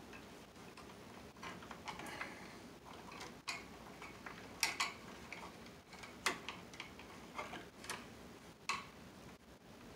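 Copper electrical wires and small hand tools being handled at a plastic outlet box, making irregular sharp clicks and ticks about once a second.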